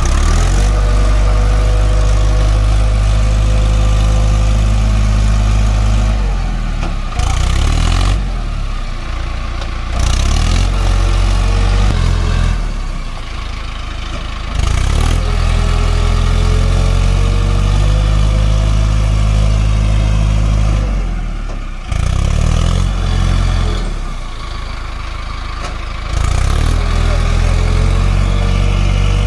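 Mahindra Arjun 555 DI tractor's four-cylinder diesel engine working hard as the bogged tractor tries to pull out of mud. Its revs ease off and climb again about three times.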